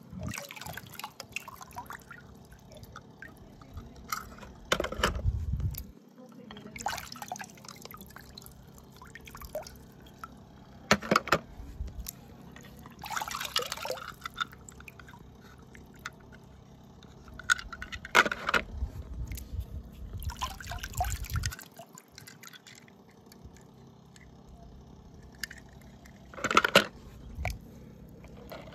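Water splashing and dripping in short, irregular bursts as small toy cars are moved about in it.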